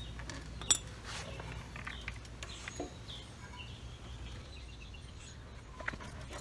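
Hands working at a motorcycle's front fender: one sharp click a little under a second in, then a few faint clicks and knocks, over a steady low hum. Faint bird chirps in the background.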